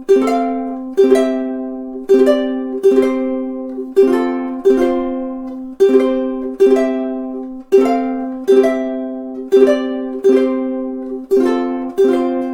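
Kala KA-CARA-BUR-T tenor ukulele playing a slow chord progression, one strummed chord about every second, each left to ring and fade before the next.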